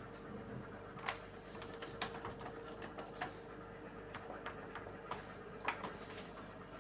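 Faint, irregular clicks and ticks from a Beko washing machine being set to respin, about a dozen spread over several seconds, over a faint steady hum.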